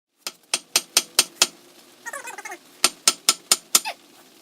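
Two runs of sharp knocks, about four to five a second, with a cat meowing between them about two seconds in and giving a short falling cry near the end.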